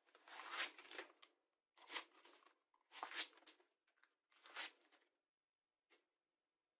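A freshly sharpened knife slicing through sheets of magazine paper: four rustling cuts, each about a second long, testing the edge for sharpness.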